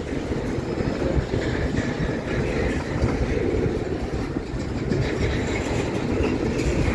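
Double-stack intermodal freight train's loaded well cars rolling past: a steady rumble of steel wheels on rail with clickety-clack over the rail joints.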